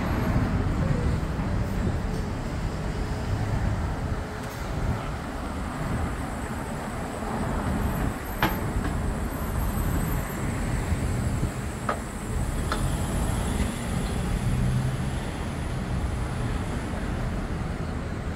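Street traffic: a steady rumble of passing vehicles, with a few brief sharp clicks.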